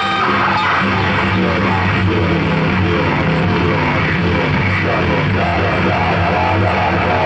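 Live noise music: a loud, dense wall of distorted sound over a steady low drone, without a break.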